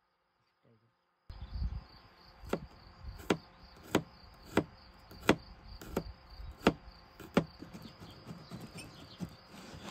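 Insects trilling steadily in summer grass, with sharp knocks repeating evenly about every 0.7 s over it. The knocks are the loudest sound and die away near the end. The sound comes in suddenly about a second in, after near silence.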